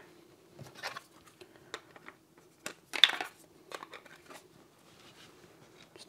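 Small plastic clicks and rustles as the battery doorbell's back cover is handled and fitted over the batteries, with a louder scraping rustle about three seconds in.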